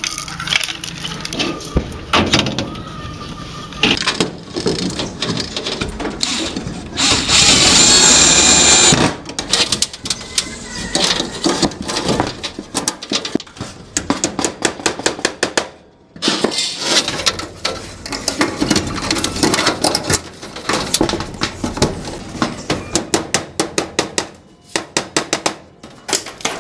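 Tool work during house wiring: a run of sharp knocks, clicks and scrapes, with one loud, steady power-tool burst of about two seconds, seven seconds in.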